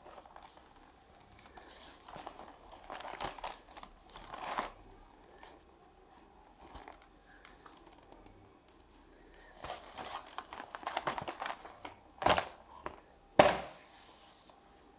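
Paper and cardboard board-game contents being handled and unpacked: two spells of rustling and crinkling, then two sharp smacks near the end, the second the loudest.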